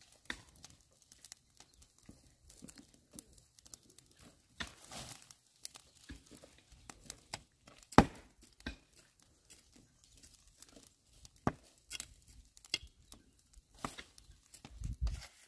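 Dry grass and brush crackling and rustling in irregular short bursts, with one sharp snap about eight seconds in.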